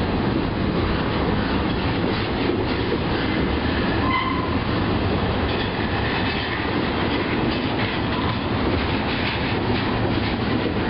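A CSX double-stack intermodal train's well cars roll past with a steady rumble and clatter of wheels on the rails. A brief high squeal comes about four seconds in.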